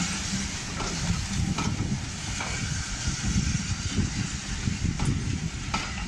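Passenger coaches of a steam-hauled train rolling slowly past, with a steady low rumble and hiss and a few clicks as the wheels cross rail joints.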